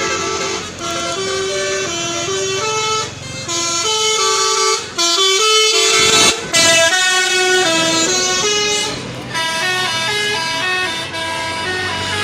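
Tour bus 'telolet' horn, a set of multi-tone air horns, playing a melody of short held notes that step up and down in pitch, with brief breaks about three, five and six and a half seconds in.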